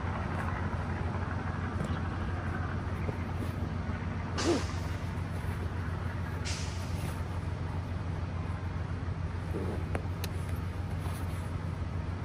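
Two short rasping zips, about four and a half seconds in and again two seconds later, as the nylon compression straps of a sleeping-bag stuff sack are pulled tight through their buckles. A steady low engine hum runs underneath.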